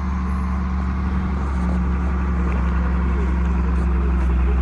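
Motor vehicle engine running steadily, a constant low drone.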